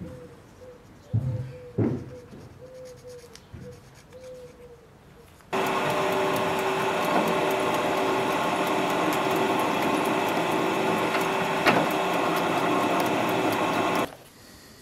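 A drill press boring through a metal sword-pommel blank. A steady motor-and-cutting whine starts suddenly about five and a half seconds in and stops abruptly near the end. A few light taps come before it.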